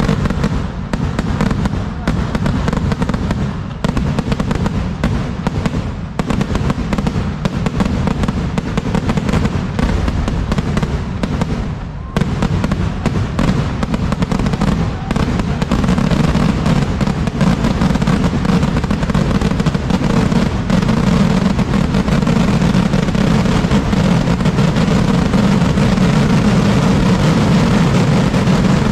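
Kerala vedikkettu ground fireworks going off in a rapid, unbroken barrage of firecracker bangs that run together into a continuous din. It dips briefly about twelve seconds in, then grows steadier and slightly louder through the second half as the display builds.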